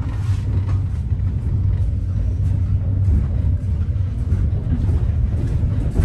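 Steady low rumble of a moving passenger train, heard from inside the carriage.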